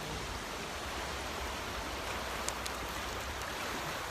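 Steady rushing roar of Jeongbang Waterfall's falling water, with a couple of faint clicks about two and a half seconds in.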